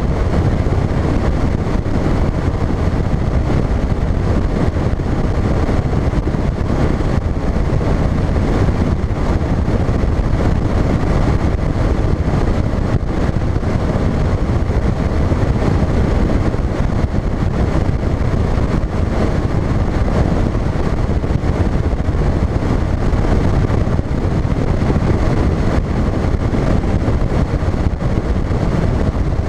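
Phoenix bass boat running at speed across open water: a loud, steady rush of wind buffeting the microphone, mixed with the outboard motor running.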